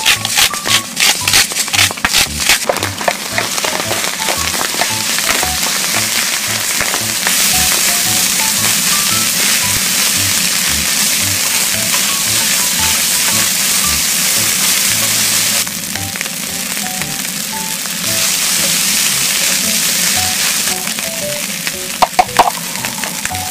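Egg fried rice frying with a loud sizzle on a cast-iron cauldron-lid griddle, with spatulas clacking rapidly against the lid in the first few seconds as the rice is chopped and tossed, and a couple of taps near the end. Background music with a steady beat runs underneath.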